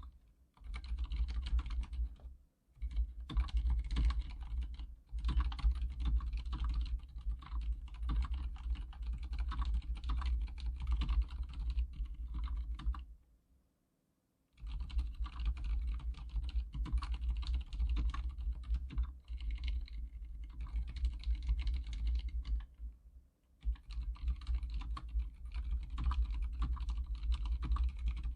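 Typing on an Archon K79 keyboard with silent red mechanical switches: a steady, continuous run of keystrokes that stops for about a second halfway through.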